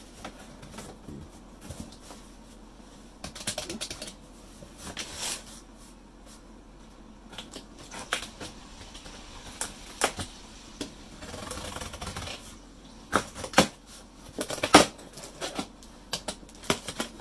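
A package being handled and opened by hand: scattered clicks, taps and scraping, with a longer rustle of packaging about two-thirds of the way through.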